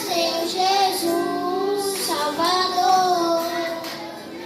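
Children singing with a woman's voice among them, holding long sung notes.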